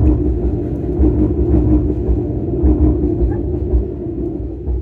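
Train crossing a steel railway bridge: a loud, steady rumble with a droning hum.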